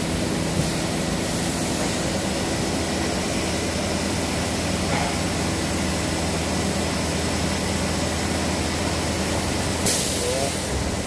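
SCM Accord 30 FX-M CNC machining center running: steady machine noise with an even hiss and a low hum. A deeper hum sets in about three and a half seconds in, and a short sharp click comes near the end.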